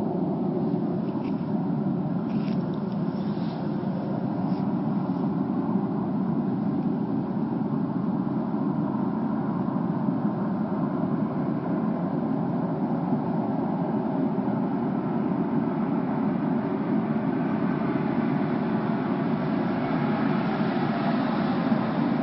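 A steady, low, droning rumble with no clear beat or pitch change: the unexplained 'strange noise from the sky'. A few faint clicks come in the first few seconds, and a higher hiss grows into the drone near the end.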